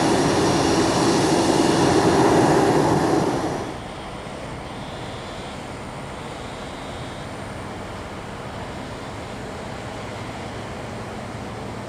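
Jet engines of a Boeing 737 taxiing close by, a loud steady whine and rush. About four seconds in it cuts off abruptly to a much quieter, steady background rumble of distant airport engine noise.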